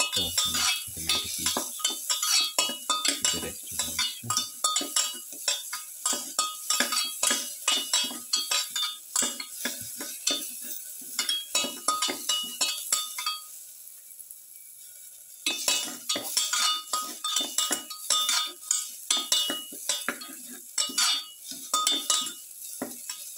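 A spoon stirring and scraping garlic cloves, onions and shallots around a frying pan, with quick knocking strokes against the pan several times a second over the sizzle of sautéing in oil. The stirring stops for about two seconds past the middle and then starts again.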